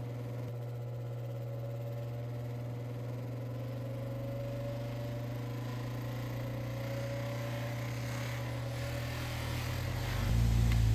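Bench polishing motor running steadily with a felt buffing wheel while a gold-filled pocket watch case is held against it for polishing, a low hum with a faint wavering whine. It grows into a louder low rumble near the end.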